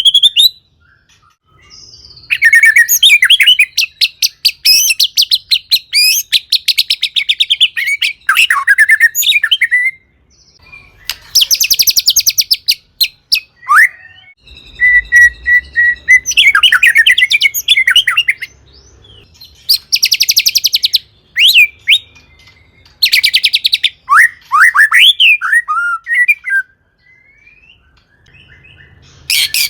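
White-rumped shama (murai batu) singing vigorously in loud, high phrases of a few seconds each. The phrases are packed with fast rattling trills and quick sliding notes, with short pauses between them.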